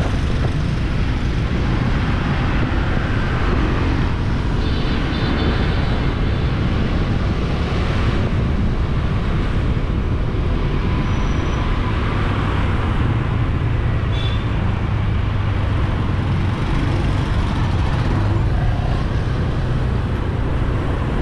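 Loud, steady busy street traffic, engines running with a strong low rumble. Short high beeps sound about five seconds in and again around fourteen seconds.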